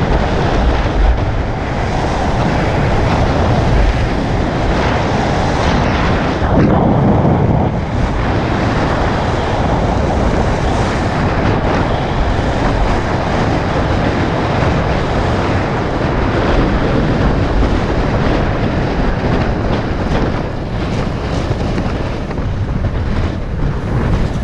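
Loud, steady wind buffeting on the microphone of a camera riding on a Zero 10X electric scooter at speed, with low road rumble underneath.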